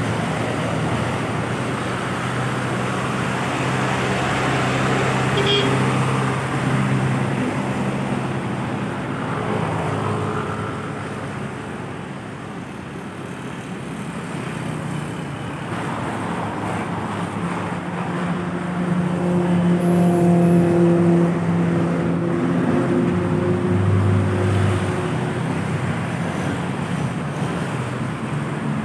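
Road traffic with heavy vehicles' engines running past, getting louder about two-thirds of the way through as one comes close.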